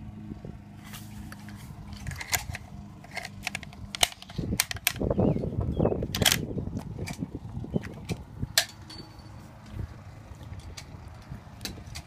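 Scattered sharp clicks and knocks of cartridges and a K-31 rifle being handled, with a stretch of close rustling from about four to seven seconds in.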